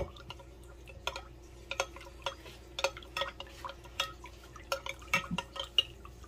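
Metal spoon stirring a thin gravy base in a Pyrex glass measuring cup, clinking against the glass in quick, irregular taps, with one sharper knock at the start.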